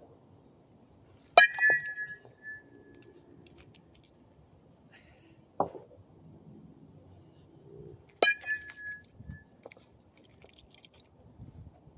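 A softball bat hitting self-tossed softballs twice, about seven seconds apart, each contact a sharp ping that rings briefly. A duller knock falls between the two hits.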